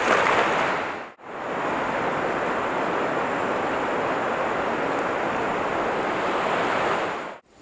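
Steady rushing of a shallow river flowing over stones, with a cast net splashing onto the water at the start. The rush is broken by two brief gaps, about a second in and near the end.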